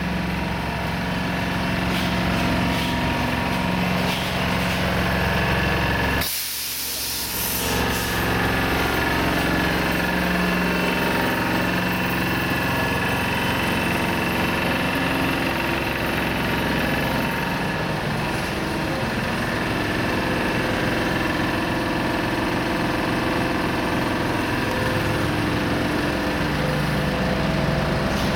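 Heavy-haul truck's diesel engine running steadily at crawling speed. About six seconds in, a loud hiss of compressed air lasting about a second and a half.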